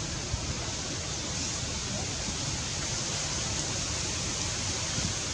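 Steady, even hiss of outdoor background noise, with faint low rumbles and no distinct event.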